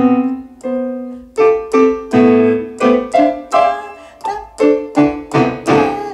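Casio LK-520 electronic keyboard played in a piano tone: single notes and chords struck one after another, about two a second at an uneven pace, each fading before the next.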